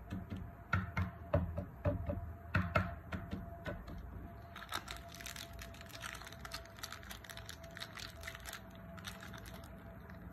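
Wrapped chocolate bars set down on a table in a run of light taps and knocks, then a chocolate bar's plastic wrapper crinkling in the hands from about four and a half seconds in.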